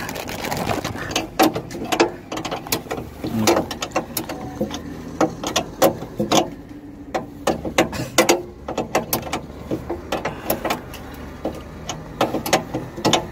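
Irregular sharp clicks and taps of a metal screwdriver working on the terminal strips inside an electrical junction box, over a steady low hum.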